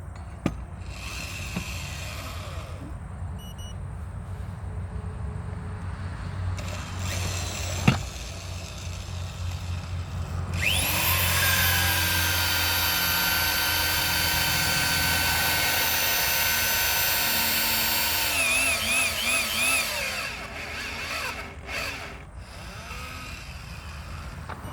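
A power driver turning a helix ground screw: its motor whines up to speed about ten seconds in and runs steadily for about eight seconds, then its pitch wavers and it stops. A low steady hum lies underneath, and there is a sharp click partway through.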